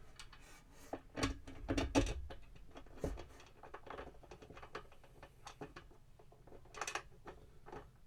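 Handling noises of a loudspeaker being fitted into a guitar amp cabinet: irregular clicks, taps and light knocks of the speaker frame and mounting hardware against the baffle, with a few heavier thumps about a second or two in.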